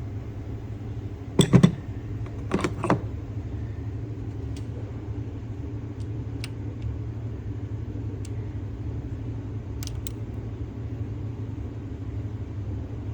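Sharp clinks and knocks of hand tools working on metal, loudest in two clusters about one and a half and three seconds in, then a few faint single ticks, over a steady low hum.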